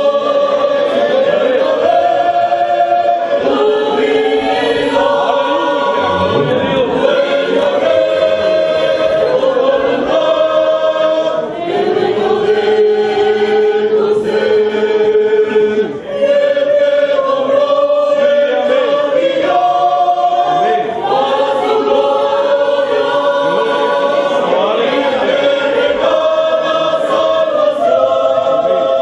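Youth choir singing a church hymn together, holding long notes that change every couple of seconds.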